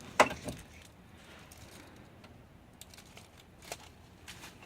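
A sharp click or knock just after the start, a lighter one soon after, then quiet room tone with a few faint ticks.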